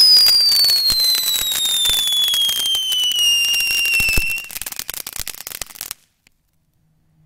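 Electrical Shock ground firework fountain burning with dense crackling under a loud whistle. The whistle falls slowly in pitch and ends about four and a half seconds in. The crackling goes on alone until the sound cuts off suddenly about six seconds in.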